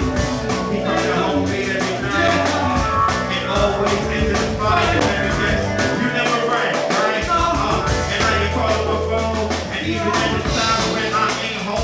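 Live hip-hop performance heard from the crowd: vocals into microphones over a beat with deep sustained bass notes and steady drum hits. The bass drops out briefly just past the middle, then returns.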